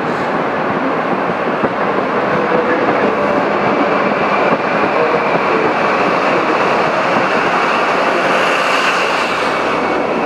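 East Midlands Trains InterCity 125 (HST) set's Mark 3 coaches rolling past at close range: a steady, loud rush of wheels on rails with some clickety-clack.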